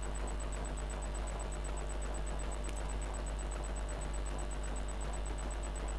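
Steady low electrical hum with a faint hiss on a bench where a computer power supply is running under test load.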